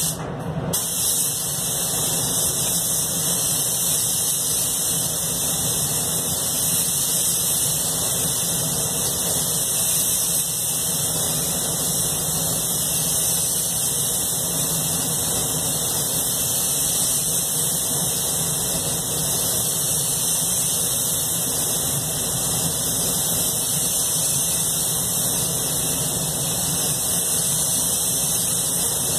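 Anest Iwata Classic Plus spray gun hissing steadily as air and paint are sprayed onto a car's body panels, with a steady low hum beneath. The hiss drops out briefly about half a second in, then resumes.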